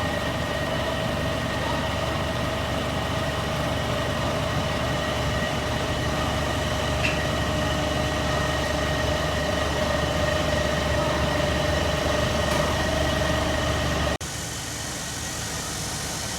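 Four-row corn harvester running steadily, a low engine rumble with a constant whine from the machinery on top. About fourteen seconds in, the sound cuts abruptly to a slightly quieter stretch of the same kind of running.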